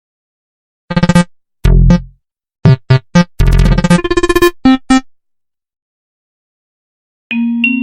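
Meme ringtone playing: a quick run of short electronic notes and stabs over about four seconds, then a pause, and near the end another ringtone starts with held, chiming notes.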